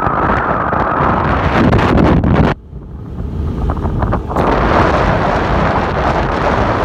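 Strong wind buffeting the phone's microphone on an open ferry deck, a loud rushing rumble. About two and a half seconds in it suddenly drops away for a couple of seconds, then comes back as strong as before.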